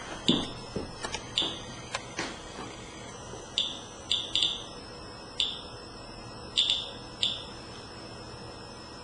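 Medcom Inspector Geiger counter chirping once per count: a dozen or so short, high chirps at irregular, random intervals. The rate is ordinary background radiation, about 40 counts per minute, so the paper towels are not radioactive.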